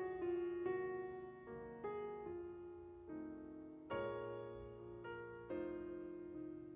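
Slow, gentle piano music: single notes and chords struck and left to fade.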